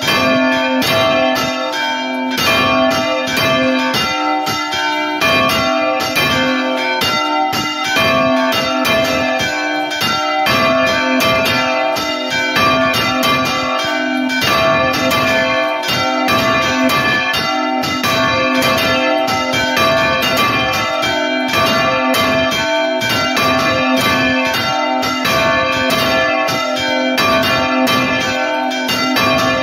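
Church bells at close range in the belfry, several ringing together in a fast, continuous stream of strokes, one of them swung full circle. This is a Spanish 'toque de misa', the ringing that calls people to mass.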